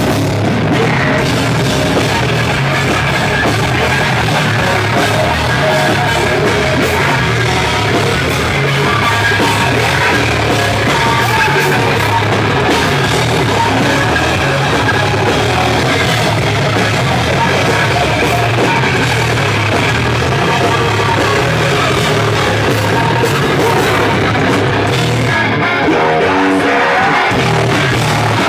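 Loud live metalcore band playing: distorted electric guitars, bass and drum kit together at full volume.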